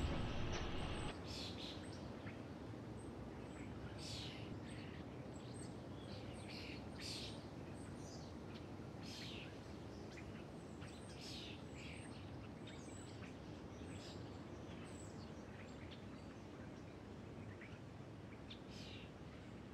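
Outdoor ambience: a steady background hiss with short, high bird chirps scattered about once a second. A louder noise cuts off about a second in.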